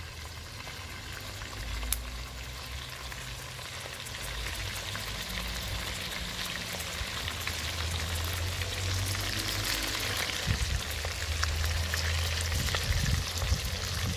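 Spiny lobsters frying in hot oil in a pot: a steady sizzle full of small crackles and pops, growing louder a few seconds in.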